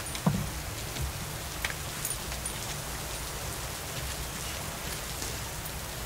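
Steady rain falling, with drops ticking on a surface. There is one sharp knock just after the start, and a few faint, short, high chirps.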